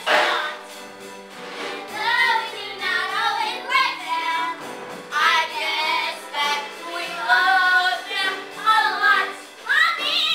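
Young girls singing a musical-theatre song together over instrumental accompaniment, in short sung phrases.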